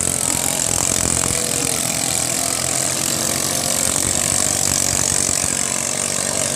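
Ketinting longtail boat engines running steadily.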